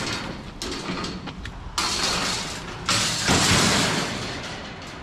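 Wire-mesh scrap metal being handled and loaded into a metal trailer: creaking, scraping and rattling of metal on metal. There is a sudden clatter about two seconds in, and a louder, longer scrape a second later that fades out.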